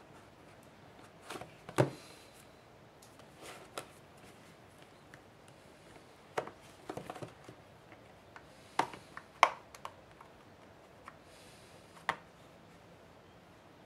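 Plastic clips of a Google Nexus 7 (2012) tablet's back cover snapping loose one after another as a pry tool and fingertips work along the edge: a scatter of sharp clicks, the loudest about two seconds in and again near the ten-second mark.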